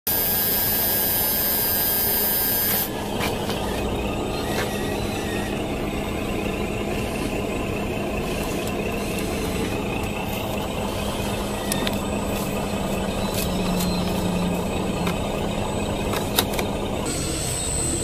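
Small DC electric motor of a 1/12-scale RC backhoe running with a steady hum, a high-pitched whine on top of it for the first three seconds that stops abruptly, and a single sharp click near the end.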